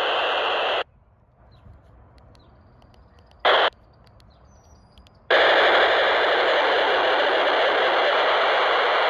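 POCSAG pager data transmissions received on 26.745 MHz FM through a PNI Escort HP 82 handheld CB radio's speaker: a harsh, hissing data buzz. It cuts off suddenly under a second in as the signal drops and the squelch closes, gives one short blip a few seconds later, then comes back abruptly about five seconds in.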